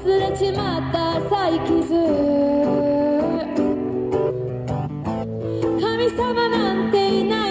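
A young woman singing over guitar accompaniment in a live performance. Her voice pauses for about two seconds midway while the accompaniment carries on.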